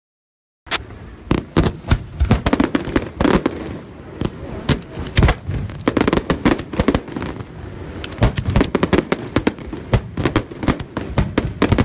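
Fireworks display: shells bursting in rapid, irregular bangs, several a second, over a continuous din of fireworks. The sound cuts in abruptly from silence just under a second in.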